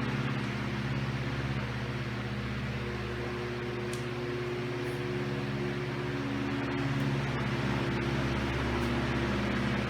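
Diehl 16-inch three-speed oscillating table fan from the 1920s running on high with oscillation on: a steady whirring rush of air over a low motor hum, its level easing and then swelling again as the head sweeps.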